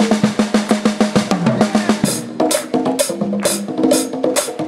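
Live band playing a funk instrumental on drum kit, congas and keyboards: a fast run of snare drum strokes for about two seconds, then the band comes back in on a steady groove with sharp drum hits about twice a second over held pitched notes.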